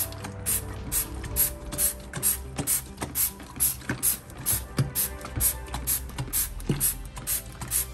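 Hand trigger spray bottle of bleach cleaner squirted over and over, about two short hissing sprays a second, over background music.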